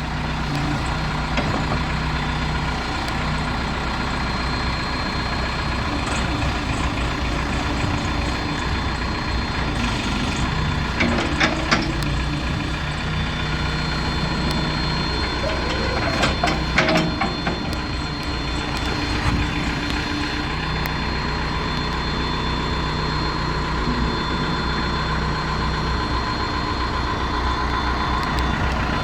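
Case 580L Series II backhoe's four-cylinder diesel engine running steadily, with its pitch shifting as it works. Sharp metallic knocks come twice, about eleven seconds in and again around sixteen to seventeen seconds.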